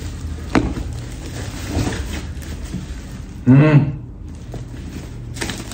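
Handling of a bubble-wrapped parcel held in both hands, with a sharp knock about half a second in and a few fainter handling noises after it. A short vocal sound from the man a little past halfway is the loudest sound.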